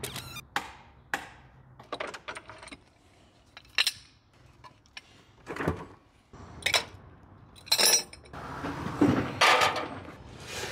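Scattered clinks and knocks of small cut steel spacers and hand tools being handled and carried, with a stretch of rustling noise near the end.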